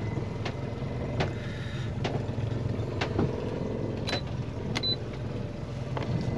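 Boat engine idling with a steady low hum, with scattered light clicks and two short high beeps about four and five seconds in as keys are pressed on a Lowrance fishfinder.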